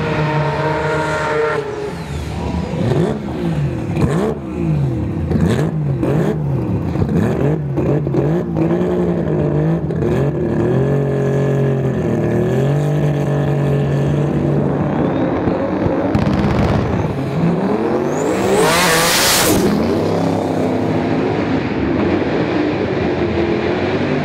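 Drag-racing car engines revving hard on the startline, pitch swinging up and down again and again, with a run of sharp pops and cracks a few seconds in. Near the end a loud rising rush as a car launches or passes.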